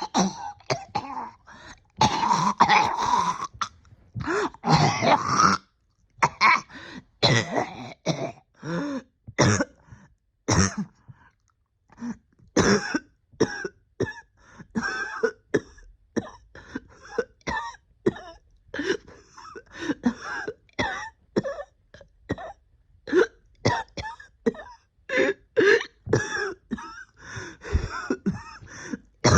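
A person coughing over and over with short harsh coughs and throat clearing, roughly one or two a second, in a denser fit in the first few seconds. It is a lingering cough that has dogged the person's breathing for about a year after an illness.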